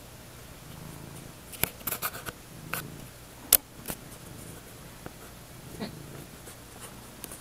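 Domestic cat purring, a low rumble that swells and fades with each breath about every two seconds. A cluster of sharp clicks and rustles comes near the middle, the loudest a single click.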